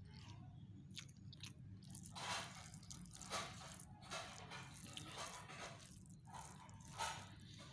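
Faint close-up eating sounds of pea rice with chicken gravy eaten by hand: irregular wet chewing and squishing noises, roughly one a second from about two seconds in, over a low steady hum.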